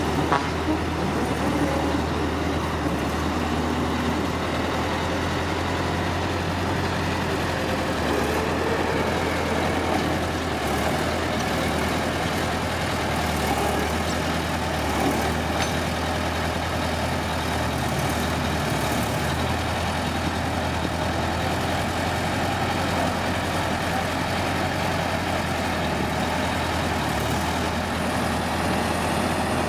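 Heavy diesel engine of earthmoving equipment running steadily: a continuous low drone with no large changes in speed.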